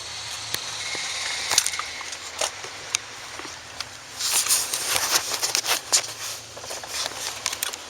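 Handling noise from a camera being set up: scattered clicks and knocks, with a brighter rustle about halfway through, over a steady low hum.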